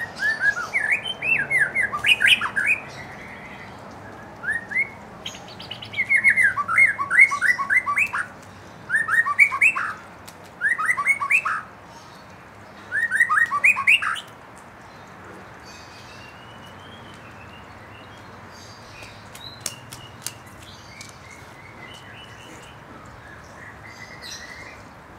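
White-rumped shama singing in six quick bursts of rapid, repeated sweeping notes, then only faint, scattered high chirps through the second half.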